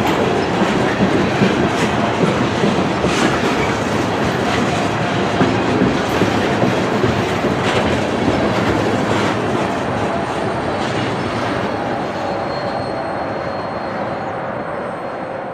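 Freight train tank cars rolling past close by: a steady rumble of steel wheels on rail with sharp clicks about every second and a half, fading out as the end of the train goes by.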